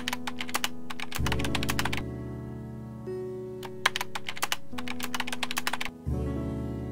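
Keyboard typing sound effect: quick runs of keystroke clicks, one for about the first two seconds and a shorter one around four seconds in, over soft background music of held chords.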